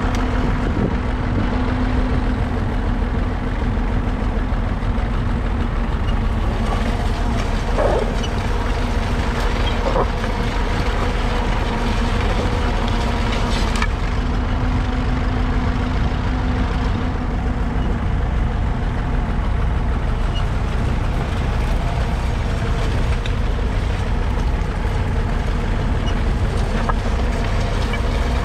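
Massey Ferguson 135's 2.5-litre three-cylinder Perkins diesel engine running steadily.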